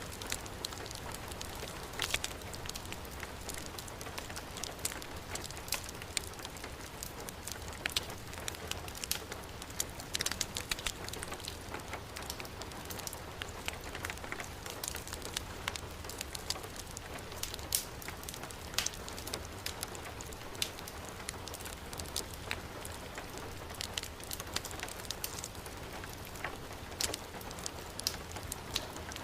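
Heavy rain falling steadily, mixed with a crackling fireplace wood fire that gives irregular sharp pops.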